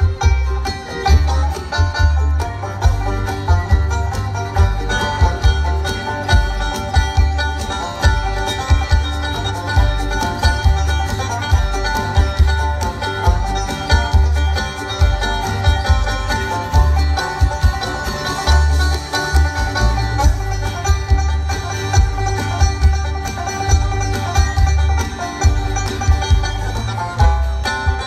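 Live bluegrass band playing an instrumental at speed, a five-string banjo picking the lead over strummed acoustic guitar, fiddles and an upright bass thumping out an even beat.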